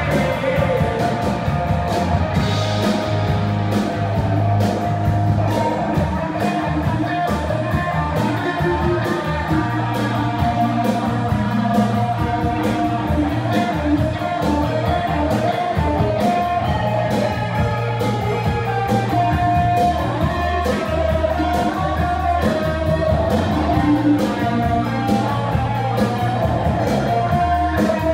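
Rock band playing live: electric guitars, bass and a steady drum beat, with a man singing.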